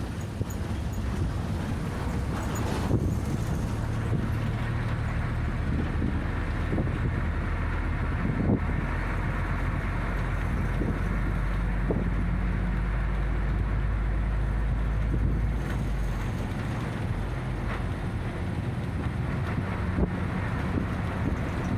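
Route bus engine running and road noise heard from inside the cabin: a steady low hum whose note changes about sixteen seconds in, with occasional short rattles and knocks.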